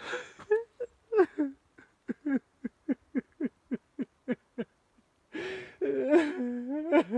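A man sobbing: a run of short, catching sobs, about four a second, then a long, drawn-out wailing cry about five seconds in.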